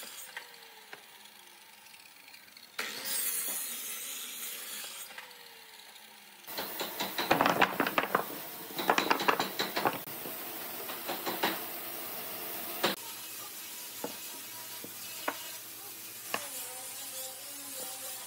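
A sliding miter saw's blade winding down after a cut, its hum falling in pitch, twice. Then loose wooden blocks clatter and knock together for a few seconds as a heap of them is handled on a table, followed by scattered single knocks as blocks are set down.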